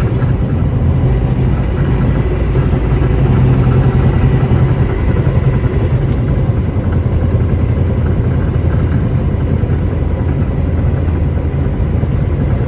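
Cummins ISX 15 inline-six diesel of a semi truck pulling under acceleration, with a grinding, clanking metal noise that the owner traces to the steering gearbox and that appears only under load.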